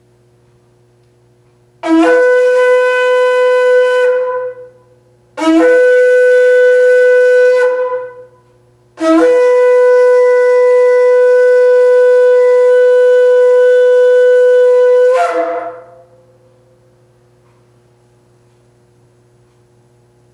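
A shofar (ram's-horn trumpet) blown in three long, steady blasts, the third much the longest at about six seconds. Each blast opens with a brief rise in pitch and then holds one bright, brassy note.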